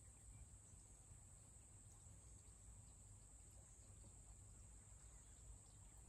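Near silence: a faint, steady high-pitched insect trill over quiet rural background noise.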